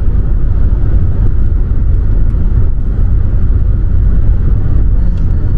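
Steady low rumble of a car driving at speed, heard from inside the cabin: tyre, road and engine noise.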